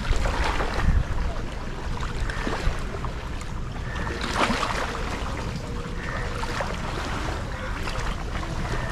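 Strong wind buffeting the microphone, with choppy waves on the river washing against the bank.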